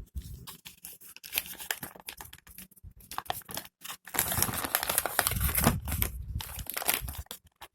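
Packaging being handled: crinkling and rustling of paper or plastic in irregular bursts, fainter at first and heavier from about halfway through.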